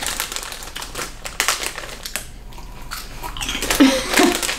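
Crunching and crinkling: a crispy snack being chewed up close while its foil snack bag is handled, many small irregular crackles. A short voice sound comes in near the end.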